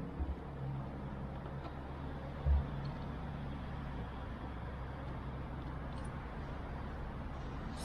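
Steady low background rumble, with one short low thump about two and a half seconds in.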